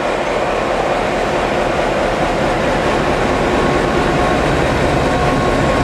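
EMD series 661 diesel locomotive passing close by, its two-stroke diesel engine running steadily under load as the train rolls past.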